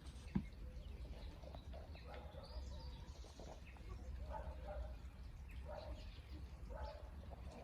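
Foraging poultry giving short, low calls, faint, about four times, over a steady low rumble, with a brief higher chirp in between.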